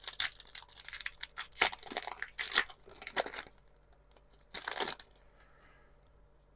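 Foil wrapper of a Pokémon trading card booster pack being torn open, a dense crinkling tear for about three and a half seconds. A shorter crinkle follows about a second later.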